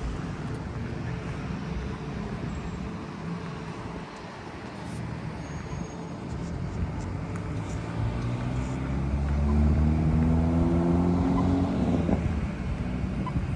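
Road traffic rumble, then a motor vehicle's engine coming closer and speeding up. Its pitch rises and it gets louder from about halfway in, is loudest near the end, then drops away.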